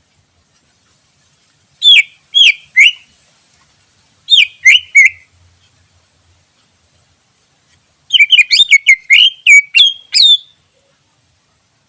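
Wild green leafbird (cucak ijo) singing: loud, sharp whistled notes that each drop steeply in pitch, given as two short phrases of three notes and then, about eight seconds in, a quicker run of around ten notes, with silence between phrases.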